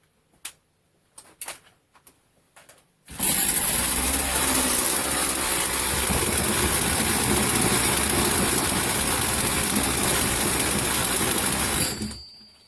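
Partner 510 two-stroke chainsaw engine starting abruptly about three seconds in after a few faint clicks, running steadily for about nine seconds, then cut off. It starts readily because it is warm, with a fresh spark plug fitted.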